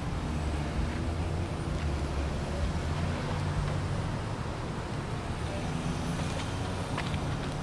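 Cars idling and creeping along in a slow queue, a steady low engine rumble with traffic noise.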